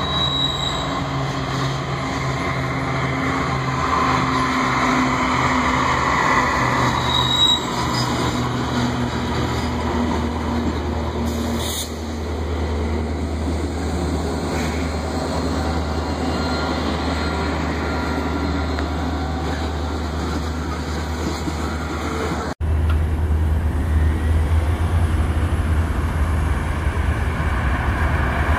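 Freight train hauled by diesel locomotives (a GE Evolution-series unit and EMD SD40-2s) passing close by: engines running with a steady low drone under the rolling rumble of wheels on rail. Near the end the sound changes abruptly to a louder, deeper rumble as the lead locomotive comes head-on.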